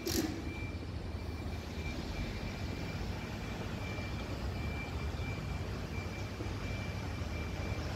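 Steady low rumble of city street traffic, with a faint high-pitched whine coming and going.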